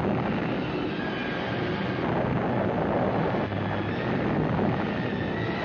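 Steady rumble and rush of an atomic blast's shockwave and blast wind sweeping dust over an army trench, on an old newsreel soundtrack.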